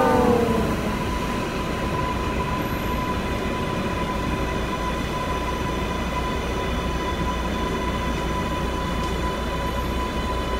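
New York City subway car running, heard from inside the car: a steady rumble with a steady whine over it. A falling tone fades out in the first half second.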